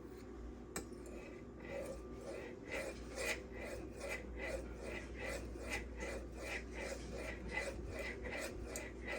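M390 steel knife blade stroked back and forth across a Venev 5000-grit diamond resin stone, the final finishing stone: a rhythmic rasping at about three strokes a second, starting about a second and a half in, after a single light click.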